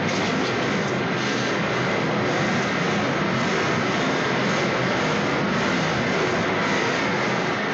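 Lo-fi goregrind recording: a loud, dense, unbroken wall of distorted noise with no pauses.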